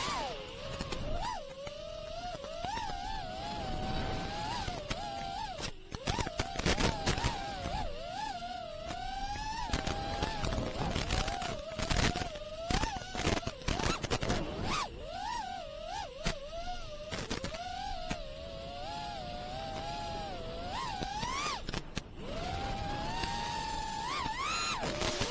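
FPV quadcopter's brushless motors and propellers (iFlight Xing2 2306 1750kv) whining, the pitch constantly swooping up and down with the throttle through freestyle manoeuvres. Several brief rushes of noise come in the middle.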